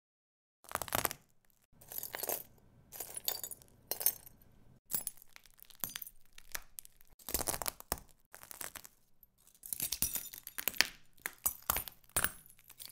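Broken glass shards crunching and clinking in a string of short bursts, about one a second at first and coming closer together near the end.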